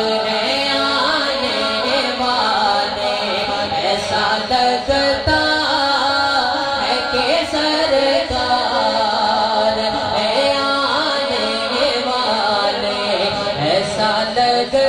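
Male voice singing a naat, long drawn-out melodic phrases that bend and waver in pitch, through an amplified sound system.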